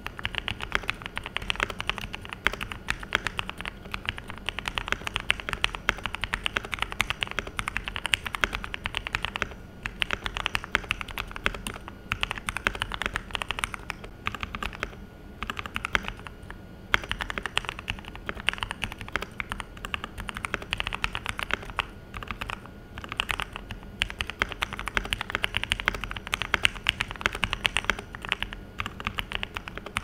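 Fast typing on a Royal Kludge RK84 mechanical keyboard with stock brown tactile switches lubed with Krytox 205g0, Durock films, band-aid, tempest and case-foam mods, giving a muted, thocky keystroke sound. Quick keystrokes at about five a second, broken by a few brief pauses.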